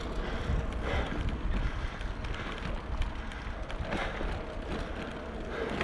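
Wind buffeting the microphone of a camera riding on a moving bicycle, a steady low rumble with a few faint swells.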